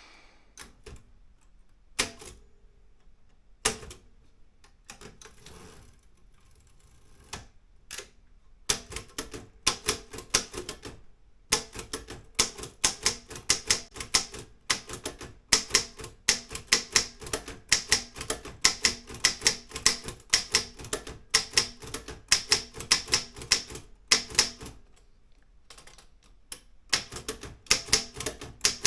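Olympia M8 manual typewriter being typed on: a few separate key strikes at first, then from about nine seconds in a fast, steady run of keystrokes, a short pause near the end, and the typing picking up again.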